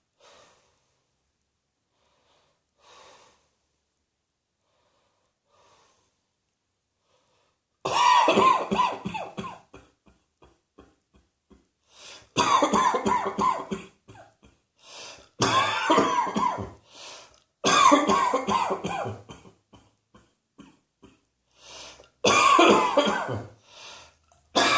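A person coughing in loud fits, each a rapid run of several coughs, six fits in all, starting about eight seconds in after a few faint sounds.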